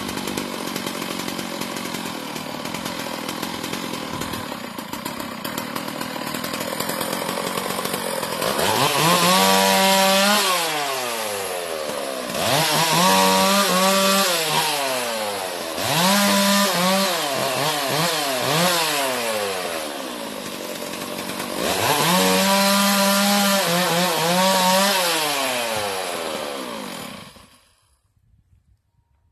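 Chainsaw running, then revved hard four times as it cuts into wood, its pitch rising and sagging with each cut. It stops suddenly near the end.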